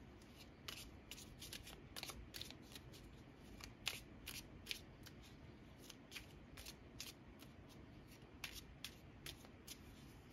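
Tarot cards being shuffled by hand: an uneven run of quiet card clicks and flicks.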